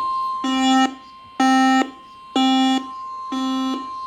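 Emergency alert tones: a steady single-pitch attention tone with a lower, buzzy beep sounding over it about once a second, four times.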